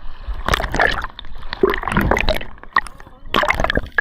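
Water splashing and gurgling around a freediving spearfisher, uneven surges of sloshing broken by many small sharp clicks and crackles.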